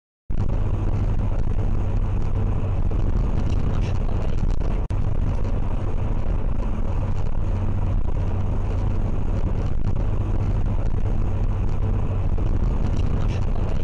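Steady road and engine noise of a car driving at highway speed, heard inside the car's cabin: a heavy low rumble with a steady hum. It starts abruptly just after the beginning and drops out for an instant about five seconds in.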